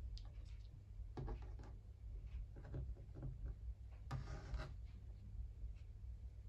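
Felt and yarn being handled and rubbed by hand as pinned felt pieces are arranged: a series of short, soft scratchy rubs, the loudest stretch about four seconds in.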